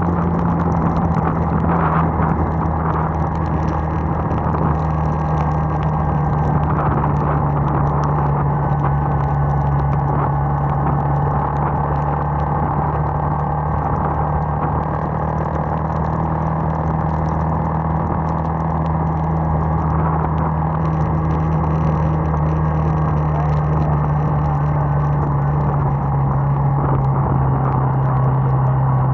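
Bajaj motorcycle engine running at a steady cruise, its hum dropping slightly in pitch near the end as it eases off, over a steady hiss of wind and tyres on the wet road.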